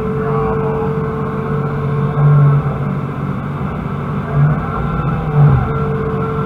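Hydraulic excavator's diesel engine and hydraulic pumps running under load, heard from inside the cab. The engine note swells briefly three times as the boom and bucket are swung and lifted, over a steady hydraulic hum.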